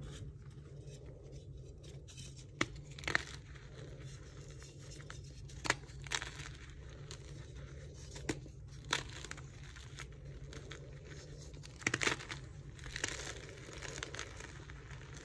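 Dyed gym chalk being broken and crushed by hand: soft crunching and crumbling of powdery chalk, with sharp cracks every second or two as blocks snap, the loudest cluster about twelve seconds in.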